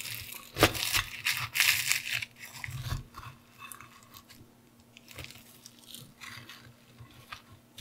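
A knife and fork cutting through a crisp air-fried pastry pie crust, crunching and crackling, loudest in the first three seconds. It is followed by fainter scrapes and clicks as the pie is pulled apart.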